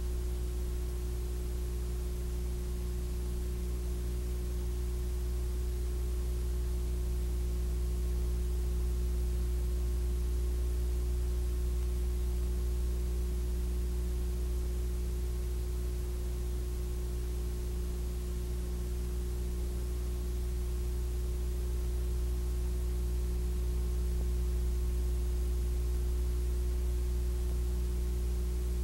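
Steady electrical hum with a few higher steady tones over a constant hiss, unchanging throughout. This is transfer noise, not recorded sound: the Super 8 film has no soundtrack.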